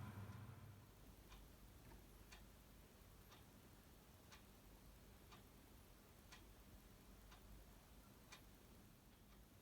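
Faint, regular ticking, about one tick a second, over quiet room tone.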